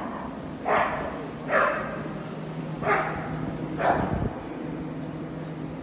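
A dog barking four short barks about a second apart, over a steady low hum.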